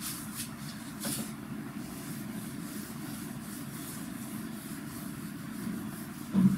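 Whiteboard eraser wiping across a whiteboard in repeated strokes, heard as faint high swishes over a steady low background hum. A short louder sound near the end.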